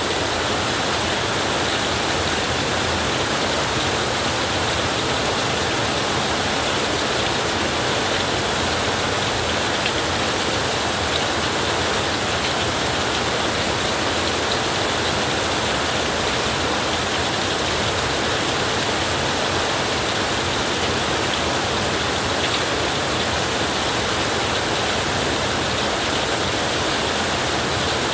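Heavy rain drumming steadily on a tin roof, a dense, even hiss with no breaks.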